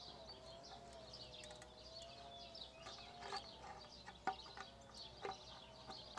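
Faint clicks and crunches of a hand downspout crimper closing its jaws on the end of a metal gutter downpipe, crimping it narrower so it fits inside the next pipe, the loudest click a little past the middle, over faint birdsong.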